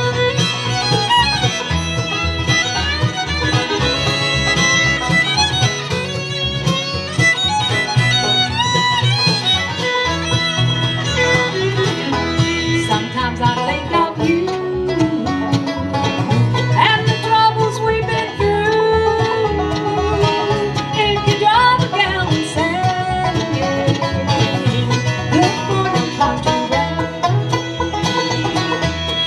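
Acoustic bluegrass band playing an instrumental break: banjo, fiddle, mandolin and acoustic guitar over an upright bass, with no singing.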